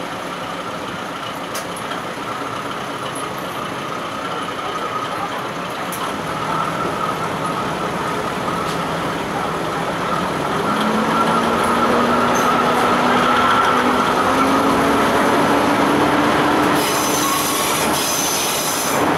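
KiHa 52 diesel railcar running along the line, heard through an open window, with the engine and wheels on the rails making a steady noise. About halfway through, the engine note rises and grows louder as the railcar picks up speed. Near the end a high ringing sound joins in.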